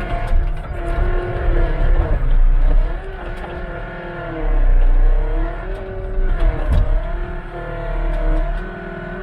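Skid steer diesel engine running under load, its pitch rising and falling repeatedly as the hydraulics work, with scattered clanks.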